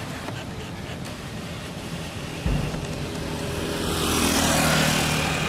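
A motor vehicle passing on the street: a steady low engine hum with road noise swelling up and peaking near the end. A single low thump about halfway through.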